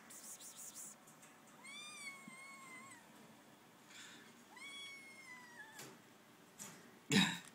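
Kitten meowing: two long, high-pitched meows, the first about two seconds in and the second about five seconds in. A brief, louder burst of sound comes near the end.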